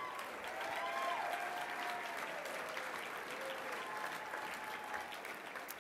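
Audience applauding, swelling about a second in and staying steady, with a few faint voices over it.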